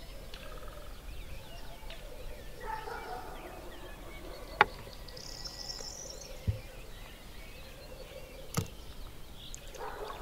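Sharp clicks of a metal fork and knife against a wooden plate: one loud one about four and a half seconds in, then two softer ones. Birds chirp and trill in the background.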